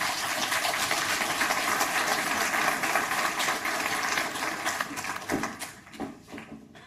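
Audience applauding, a dense patter of many hands clapping that holds steady for about five seconds and then dies away.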